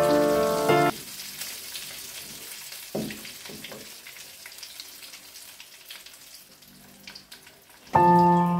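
Chicken frying in oil in a wok, a quiet steady sizzle and crackle, with a knock about three seconds in. Background music stops about a second in and comes back near the end.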